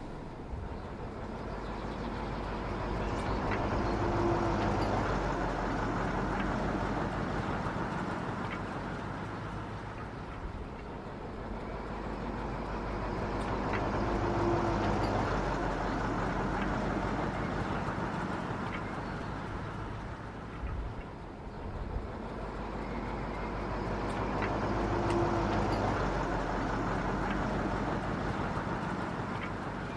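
OO gauge model Class 08 diesel shunter running slowly on the track: a rumbling mechanical running sound that swells and fades about every ten seconds, with a few faint clicks.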